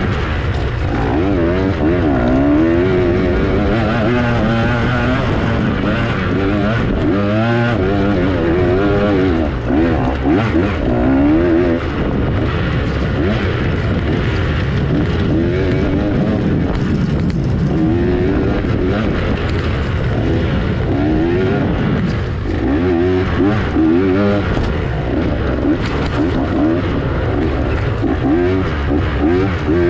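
A dirt bike engine being ridden hard off-road. It revs up and drops back over and over, its pitch rising and falling every second or two as the throttle is worked through the course.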